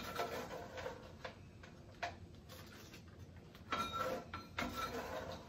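A scoop scraping and knocking against a pot while coated rice cereal mix is scooped out, in a few short clatters: one at the start, one about two seconds in, and a cluster near the end, one with a brief ringing clink.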